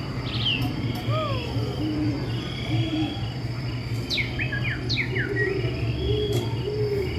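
Night-time sound effects played in a dark-ride farm scene: crickets chirping steadily, with a bird twittering a quick run of sharply falling chirps about four seconds in and soft low calls here and there, over a steady low hum.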